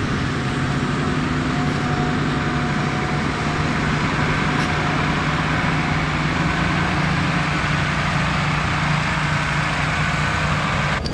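John Deere tractor's engine running steadily under load as it pulls a tined cultivator through the soil: a constant drone with a faint thin whine above it.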